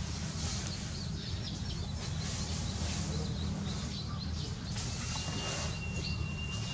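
Steady outdoor background noise with faint, scattered bird chirps; a thin, steady high tone sounds for about two seconds near the end.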